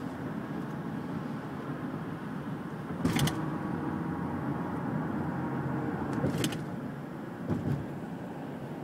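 Steady road and wind noise inside the cabin of a car driving in strong wind. Two short sharp noises break through about three and six seconds in, and a dull thump comes near the end.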